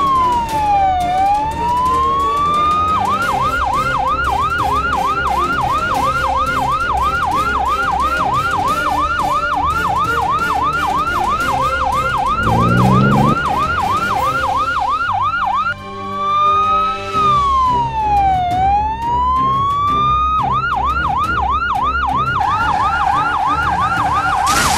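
Emergency-vehicle siren switching between a slow wail and a fast yelp. One long sweep down and back up gives way to quick yelps of about three a second for some twelve seconds, then a second slow sweep, then the yelp again.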